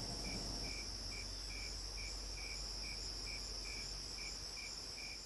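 Crickets chirping: a steady high trill, with a second insect chirping lower down about two or three times a second. The sound eases off slightly near the end.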